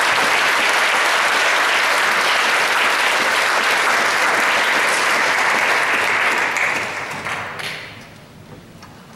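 Audience applause, holding steady for about six seconds, then dying away.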